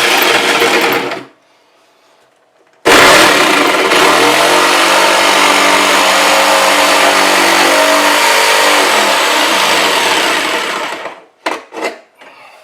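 Electric jigsaw cutting a circular hole through a cabinet's bottom panel: it stops about a second in, starts again at about three seconds and runs until about eleven seconds, its pitch wavering as it works through the board, with a few short knocks at the end. The board is hard to cut.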